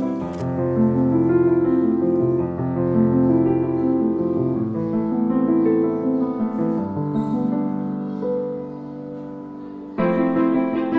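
Background piano music with sustained chords; it eases down in the second half, then comes back louder about ten seconds in.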